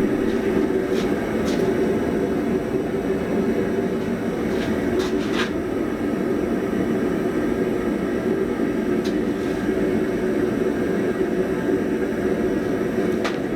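Steady rushing noise of a running forge, with a few faint light taps of metal on metal.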